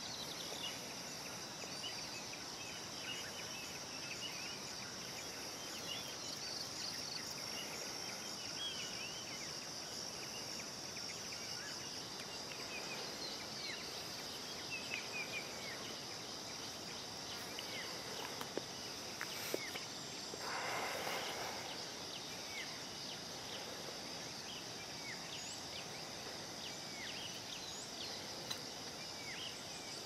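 Tropical forest ambience: a steady, high insect drone with many short, scattered bird chirps over it. A brief rush of noise comes about two-thirds of the way through.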